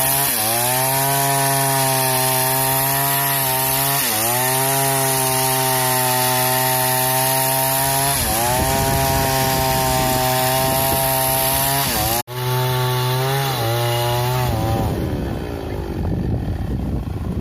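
Two-stroke chainsaw running at high speed, sawing lengthwise through a log, its pitch dipping briefly every few seconds as the chain bogs into the wood. Near the end the engine slows and falls away, leaving a rough, wind-like noise.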